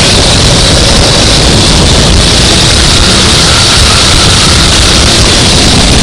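Racing go-kart engine running at speed: a loud, steady rush of noise with no clear engine note.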